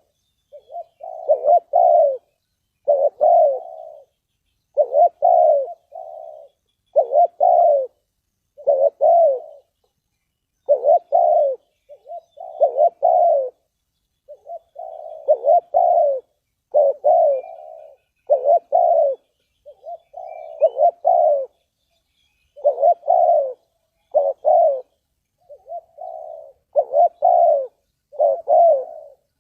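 Spotted dove cooing: a short multi-note phrase repeated about every two seconds.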